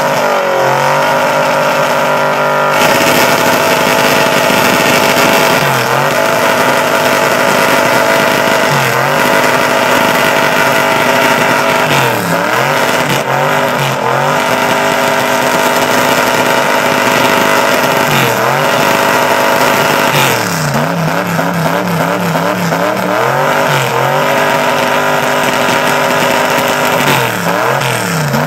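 Small pickup truck doing a burnout: its engine held at high revs while the rear tires spin on the pavement, the revs dipping briefly and climbing back again several times.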